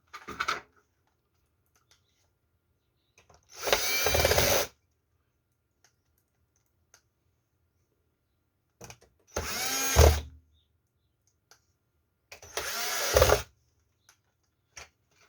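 Power screwdriver driving three screws into the plastic cover of a Samsung One Connect box, three short runs of the motor about one second each, its pitch rising and falling as each screw goes in.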